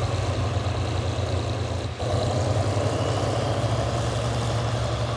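Heavy diesel engines running steadily with a low rumble, from the yard's motor grader and the passenger train's diesel locomotive. The rumble drops briefly about two seconds in.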